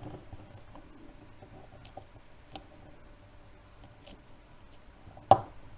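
Faint, scattered clicks of fingers handling a small watch movement while a new SR521SW silver-oxide button cell is fitted, then one sharp, much louder click a little past five seconds in as the battery is pushed into place.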